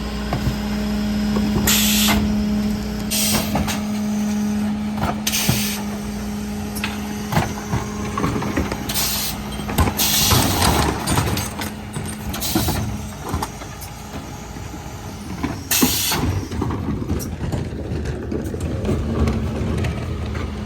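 Mercedes-Benz Econic refuse truck working a collection: the engine and hydraulics give a steady hum that stops about nine seconds in and returns near the end. Short bursts of air hiss come several times, and a stretch of knocks and clatter from the bin lift and body comes in the middle.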